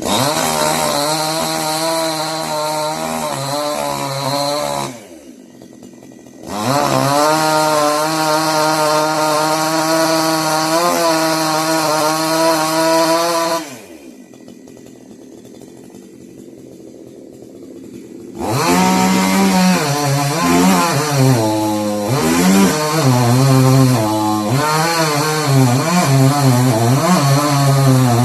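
Chainsaw cutting wood at high revs, its pitch wavering under load. It drops to a low idle twice, briefly about five seconds in and for about four seconds from around fourteen seconds in, and revs back up each time.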